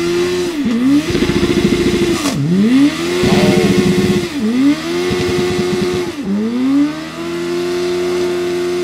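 Motorcycle engine revved hard in a burnout, spinning the rear tyre into smoke. Three times it climbs to the top of the revs and chatters there, falling back between, then holds a steady high rev near the end.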